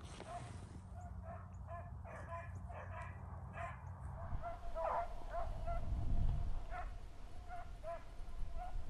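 Beagles baying steadily in the distance, short repeated cries about two or three a second: the pack is on a rabbit's scent trail and giving chase. A low rumble rises from about halfway through.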